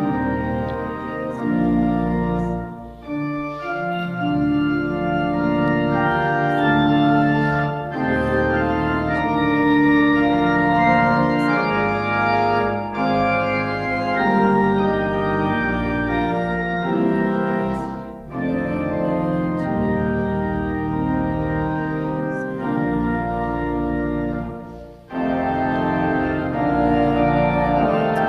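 Organ playing a slow piece in held chords, with short pauses between phrases.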